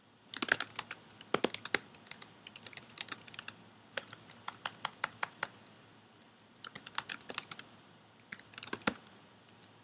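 Typing on a computer keyboard: runs of quick key clicks, with short pauses every few seconds.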